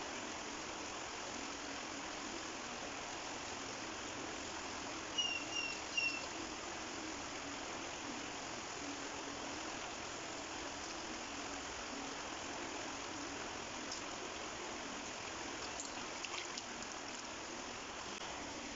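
Shallow stream water flowing steadily. Three short high chirps come in quick succession about five seconds in.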